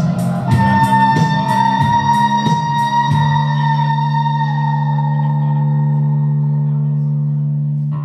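Live synth-pop band of keyboard and electric guitar ending a song. The beat stops within the first few seconds, and the final chord is held and rings out with a sustained low note, fading until it stops at the end.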